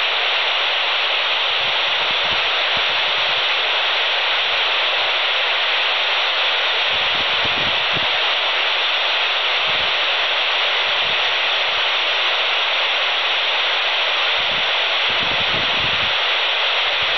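Steady loud hiss of FM static from a handheld VHF radio's speaker with the squelch open: no signal is being received on the ISS downlink at 145.800 MHz between transmissions.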